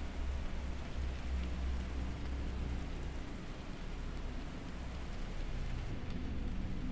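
Binaural beats meditation track: steady low droning tones, with a few fainter higher tones, under an even hiss like rain.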